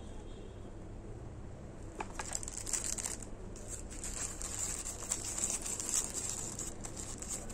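Plastic packaging crinkling and rustling in the hands: a small zip bag and the wrap around an earbud charging case being handled. It starts about two seconds in as an irregular crackle over a faint low hum.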